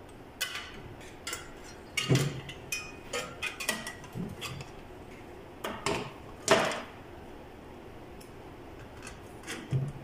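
Light metal clinks and clatter from a microwave oven's magnetron and a small sheet-metal plate being handled and worked with a screwdriver: a run of sharp knocks, the loudest about two seconds in and again around six and a half seconds in.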